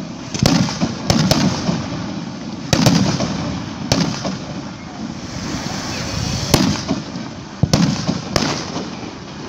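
Fireworks display going off: a run of about nine sharp bangs at uneven intervals, some in quick pairs, each trailed by a low echoing rumble.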